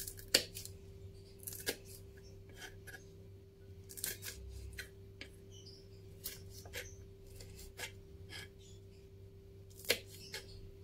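Kitchen knife slicing bird's eye chillies on a wooden cutting board: irregular crisp cuts and taps of the blade on the board, the sharpest about half a second in and near the end. A steady faint hum lies underneath.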